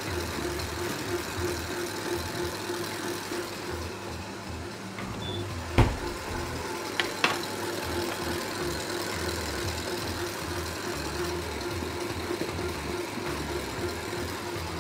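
Stand mixer motor running steadily, whipping Italian meringue as it cools. About six seconds in there is a sharp knock, and two lighter clicks follow about a second later.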